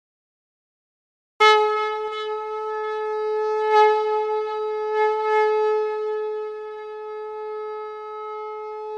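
A conch shell (shankh) blown in one long, steady note that starts about a second and a half in, swelling briefly a few times.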